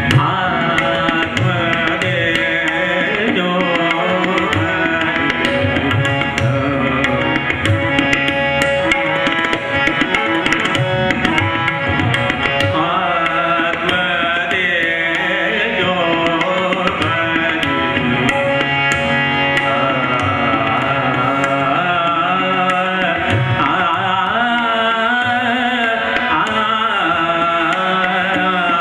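Hindustani classical vocal music: a man singing with gliding, ornamented phrases, with tabla playing steadily throughout and harmonium and tanpura drone underneath.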